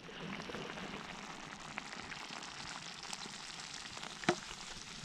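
Black pudding and beef burgers sizzling as they fry, a steady hiss with a few sharp pops, the clearest about four seconds in.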